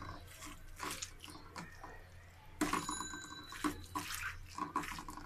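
Boiled cauliflower being squished and mashed by hand in a ceramic bowl: irregular soft, wet squelches, with a short ringing clink about two and a half seconds in.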